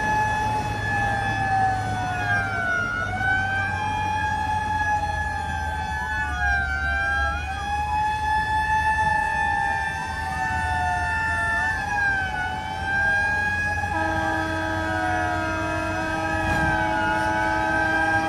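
Several fire-engine sirens wailing at once, their pitches rising and falling out of step with each other over a low engine rumble. About three quarters of the way through, a steady, unchanging tone joins the wails.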